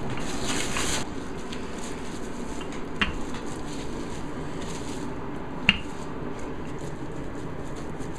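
Cling film crinkling and a wooden rolling pin rolling pie dough out between sheets of plastic film on a granite board, with the rustle loudest in the first second and two sharp knocks, the second and louder one a little over halfway through.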